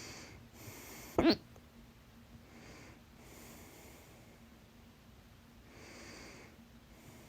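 A person's loud hiccup about a second in, a short sharp gulp whose pitch jumps upward, with soft breathing before and after.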